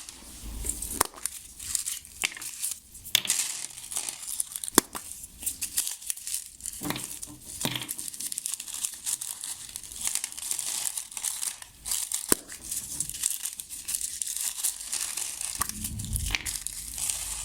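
A package of firework crackling stars being handled and opened: crinkling and rustling of the packaging, with scattered sharp little clicks and ticks throughout.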